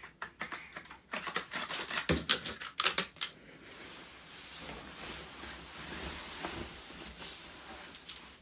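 A quick run of sharp taps and clicks, as of a small hard object being knocked about, for about two seconds. It is followed by a soft, steady rustling of a duvet as someone moves in bed.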